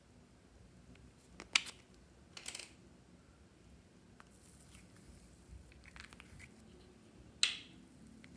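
Small plastic slime tub being handled and opened: a sharp plastic click about one and a half seconds in, then a short rattle of clicks a second later as the lid comes off. A few faint ticks follow, and there is another sharp click near the end.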